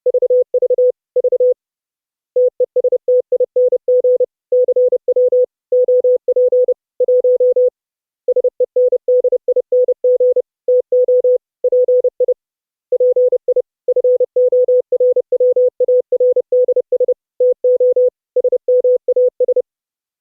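Morse code (CW) audio: a single steady tone keyed on and off in quick dots and dashes, sent in runs of characters with short pauses between words. It stops shortly before the end.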